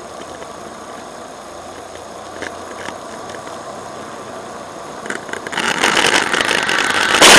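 Car engine and road noise heard from inside a dashcam car, steady at first. From about five and a half seconds a loud, rough, rattling noise builds and ends in a sharp bang near the end, as a car ahead slides off the road in a crash.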